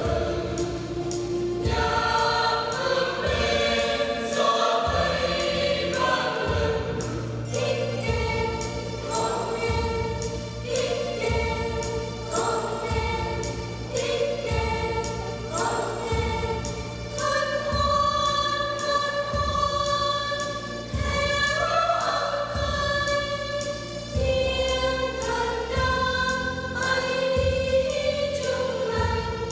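Church choir singing a Vietnamese hymn with instrumental accompaniment, a low bass line stepping under the voices.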